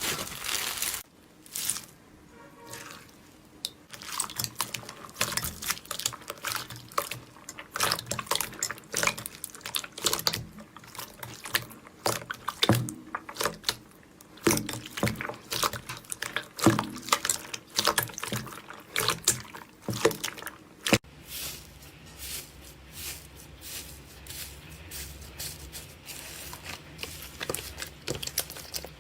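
Slime being squeezed, stretched and poked by hand, making irregular wet clicks, pops and squelches that thin out after about two thirds of the way through.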